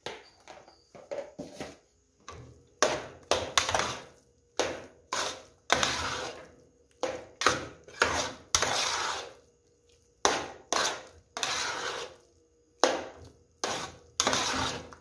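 A metal slotted spoon stirring a thick jiló and cassava-flour mash in an aluminium pot: about twenty quick scraping strokes against the pot, some short and some about a second long, with brief pauses between them.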